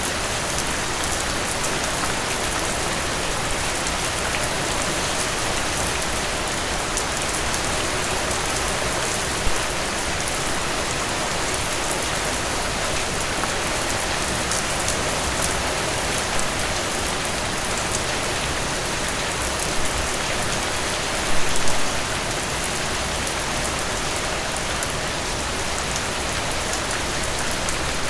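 Steady rain falling on a surface, with individual drops ticking through it. Briefly louder twice, about a third of the way in and again about three quarters in.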